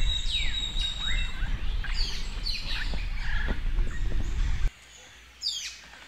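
Several birds calling, with repeated short downward-sliding calls, over a low rumble that stops abruptly about three-quarters of the way through; fainter bird calls follow.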